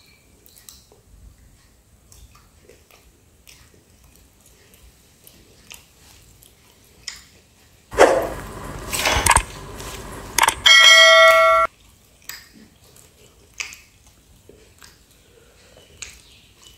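Soft crunching and chewing of a crisp folded pizza crust, interrupted about halfway through by a sudden loud burst of noise, then a bell-like ringing tone lasting about a second that stops abruptly.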